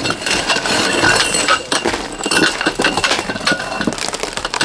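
Metal tent poles clinking and knocking as they are handled and fitted together, a quick run of small metallic clicks with brief ringing.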